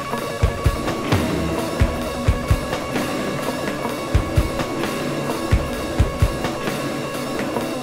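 Noise-rock music in an illbient remix: drums, with the kick drum thumping irregularly under sustained tones, played from a vinyl record.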